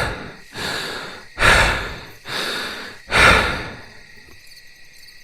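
A man breathing heavily and close to the microphone: three deep breaths in and out, each out-breath louder than the in-breath, stopping about four seconds in.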